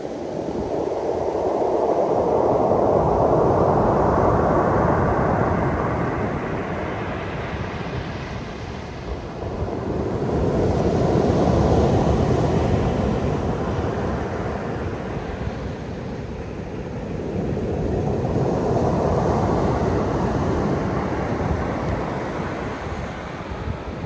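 Black Sea surf breaking and washing up a sandy beach, swelling and fading three times, about every eight seconds.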